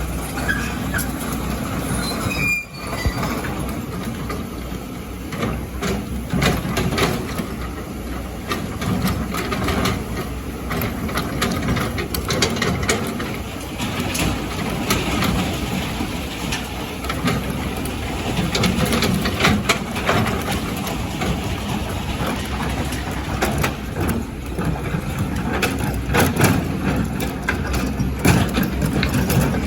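Hydraulic excavator running under load, with frequent clanks and rattles of the bucket and rock against sand and stone over the steady engine noise.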